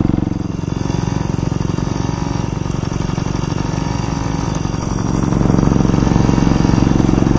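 Dirt bike engine running steadily at low speed, heard close up from the rider's seat. It gets louder from about five seconds in.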